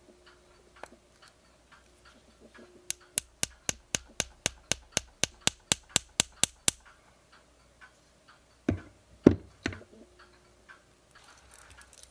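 Small metal parts of an oil match being handled: a quick, even run of sharp clicks, about four a second for nearly four seconds, then two heavier knocks a little later.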